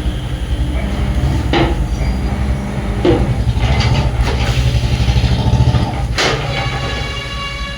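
A motorcycle engine running, with a few sharp knocks along the way and a steady horn-like tone starting near the end.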